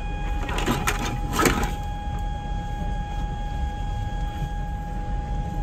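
Steady machinery hum: a constant whine over a low rumble, with a few brief clatters in the first two seconds.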